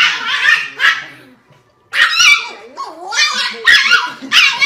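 Small dog barking and yapping in quick, high-pitched bursts, about two a second, with a short break a little over a second in: protective barking at a person leaning in to hug its owner.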